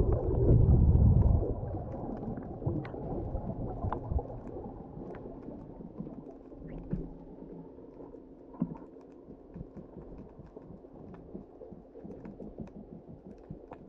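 Underwater sound heard through a submerged camera: a loud low rumble of water churning around it for the first second or so as the diver heads down, then a muffled steady hiss with scattered faint clicks.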